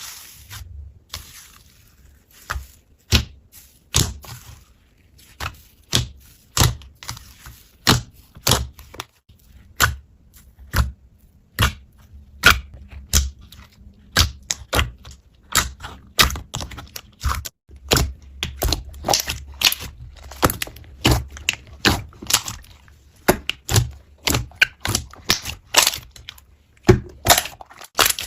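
Slime being squeezed and poked by hand, giving sharp, irregular clicks and pops, about one or two a second.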